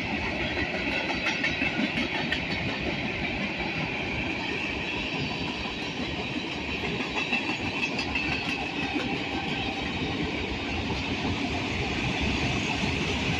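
Freight cars of a mixed train (tank cars, refrigerated boxcars and autoracks) rolling past steadily, their steel wheels clicking over rail joints above a continuous rumble.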